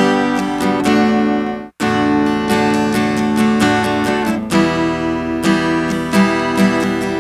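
Recorded acoustic guitar parts playing back together, strummed and picked, while a noise gate is applied to the track. The playback cuts out for a moment about two seconds in, then resumes.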